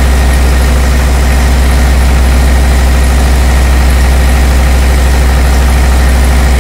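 Four-stroke diesel engine on a laboratory test rig running steadily: a loud, even low drone that does not change.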